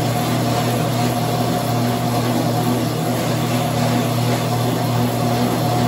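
Motorized treadmill running steadily: a continuous mechanical hum with a low tone and a fainter, higher whine over a hiss.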